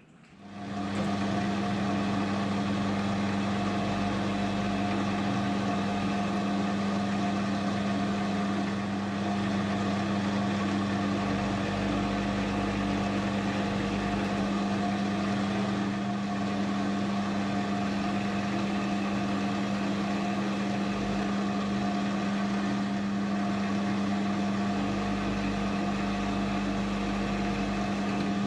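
Metal lathe starting up about half a second in, then running steadily with an even motor and gear hum while it turns the work to cut a thread in a steel nut.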